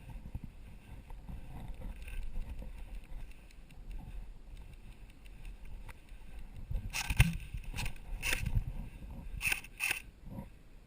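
Steady low rumbling noise, with about six sharp clicks or snaps in the second half, the first of them the loudest.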